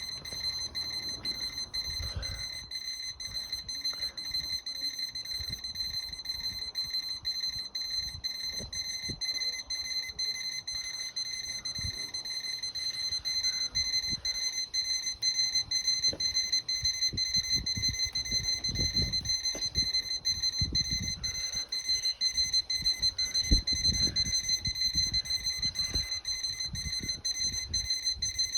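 Electronic alarm clock sounding a steady, high-pitched alarm tone that does not stop, with irregular low knocks and rumbling underneath that get louder in the second half.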